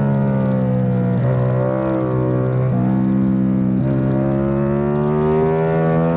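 Onboard sound of a Yamaha YZF-R7's 689 cc parallel-twin engine at racing speed. Its note breaks and steps at three gear changes in the first four seconds, then rises steadily as the bike accelerates out of a corner.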